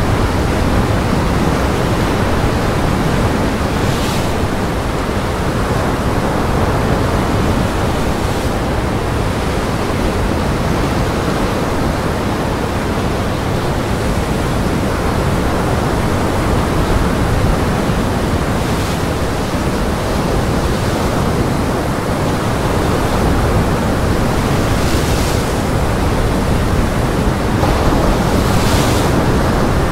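Steady roar of gale wind and heavy surf, with a few louder hissing surges of breaking waves.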